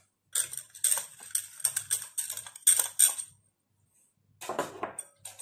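Small glass bowls clinking and knocking together: a quick run of light taps with a high ring for about three seconds, then a few more knocks near the end.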